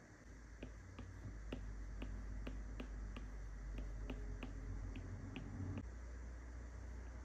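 Apple Pencil's plastic tip tapping and stroking on an iPad's glass screen: irregular sharp taps, about two a second, over a low rumble that drops away about six seconds in.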